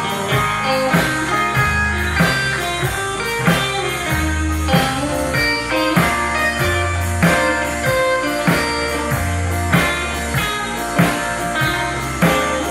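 Live country band playing an instrumental break: a guitar-led melody over bass and a steady drum beat, with no singing.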